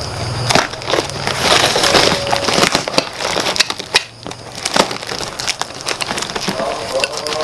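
Cardboard and packing tape being cut with a box cutter and torn apart: irregular scraping, crackling and crinkling of tape and paper.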